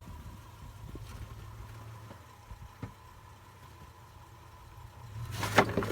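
Off-road 4x4's engine idling low and steady, with a few faint knocks. Near the end a loud, rough burst of noise rises suddenly.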